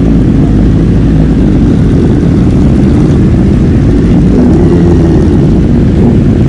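Motorcycle under way at a steady pace: a loud, even low rumble of engine and road noise with no revving up or down.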